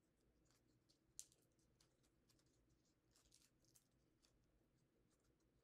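Faint, sparse crinkles and light clicks of a folded origami paper model being pinched and reverse-folded by hand, with one slightly louder crackle about a second in.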